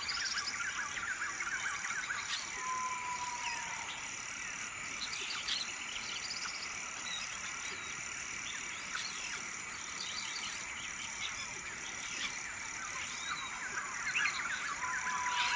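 Night chorus of frogs and insects: a steady high insect trill under many short, overlapping frog calls. A short, slightly falling whistle sounds twice, about three seconds in and near the end.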